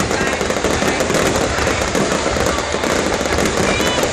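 Fireworks display going off in a dense, continuous barrage of rapid bangs and crackling.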